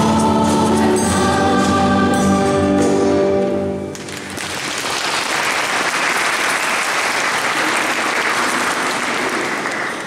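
Church choir singing a Christmas carol in held notes; the singing stops about four seconds in and audience applause follows.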